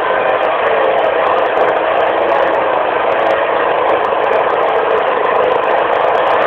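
Dixie Chopper zero-turn riding mower's engine running steadily, loud and close from the operator's seat.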